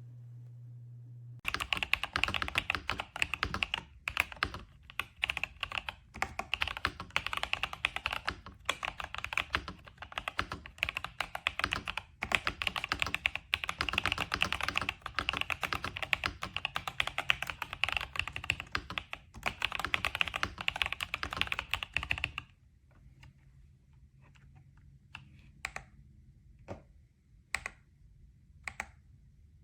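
Rapid continuous typing on an RK Royal Kludge S98 top-mount mechanical keyboard, a fast stream of key clacks. It starts about a second and a half in, stops abruptly after about twenty seconds, and is followed by several single, spaced keystrokes.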